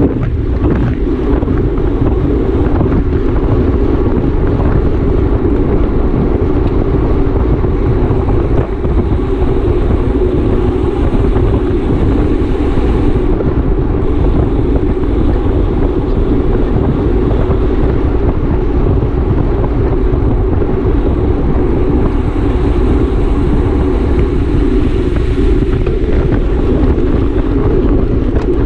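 Wind rushing steadily and loudly over the microphone of a camera carried on a bicycle ridden at race speed.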